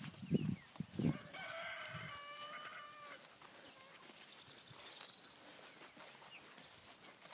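A few soft thumps in the first second, then one drawn-out pitched animal call lasting about two seconds. Faint high bird chirps follow a few seconds later.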